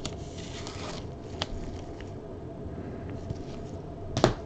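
Trading cards being handled: a soft rustle of cards sliding, with a couple of sharp light clicks, one about a second and a half in and one near the end.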